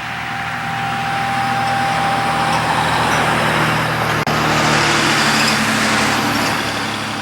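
A motor vehicle passes close by, its tyre and engine noise swelling to a peak about halfway through and then fading. Under it, a faint steady warning-siren tone is heard for the first few seconds.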